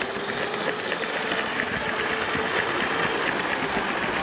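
Lego train's small electric motor running steadily with a faint whine, with light clicking from the plastic wheels on the track.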